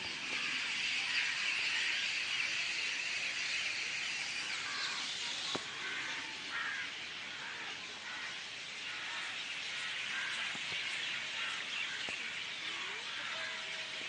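A dense chorus of many wild birds chirping and singing together, continuous and unbroken, with a single sharp click about five and a half seconds in.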